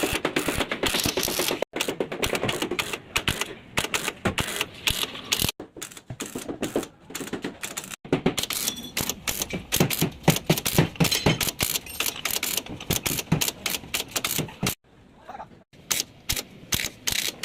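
Rapid, repeated metal tapping, many quick strikes a second, as in hammering out dents in a car's sheet-metal body panel. It comes in short bursts broken by abrupt cuts.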